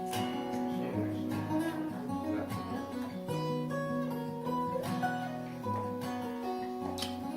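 Acoustic guitar playing chords, with a stroke about every second and the notes ringing on between strokes; no singing.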